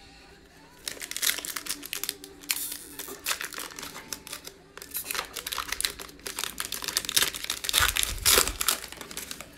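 Foil wrapper of an NBA Hoops trading-card pack being torn open and crinkled by hand: an irregular run of crackles and rips starting about a second in, loudest near the end.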